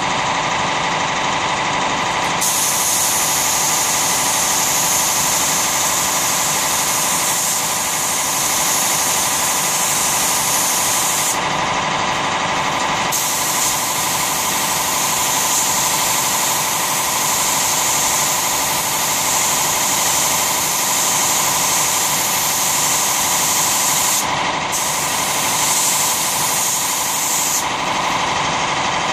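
Compressed-air siphon-feed spray gun hissing as it sprays wood finish, cutting out for a moment a few times as the trigger is released, over the steady drone of an air compressor running.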